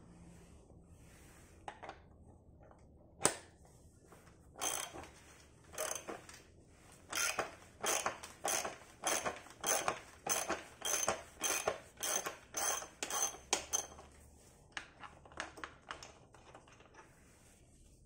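Ratchet wrench ticking as it unscrews a bicycle's crank arm bolt, in back-and-forth strokes a little under twice a second with a metallic ring. A single sharp click about three seconds in comes first, and a few weaker ticks trail off near the end.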